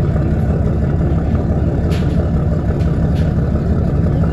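Charter boat's engine running steadily as the boat travels under way, a loud low rumble with a couple of faint clicks about two and three seconds in.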